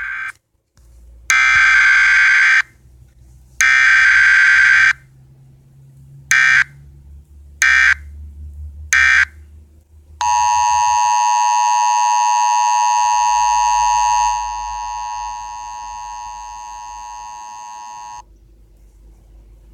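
Emergency Alert System simulator app on a phone playing an alert: harsh, screechy digital header bursts about a second long, then three short bursts. These are followed by the two-tone EAS attention signal, held for about eight seconds. It steps down in level partway through and then cuts off.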